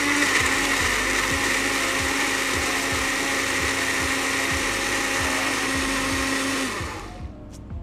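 Electric kitchen blender running at a steady pitch, blending chillies, fried shallots and sweet soy sauce into a chilli-soy sauce, then cut off near the end.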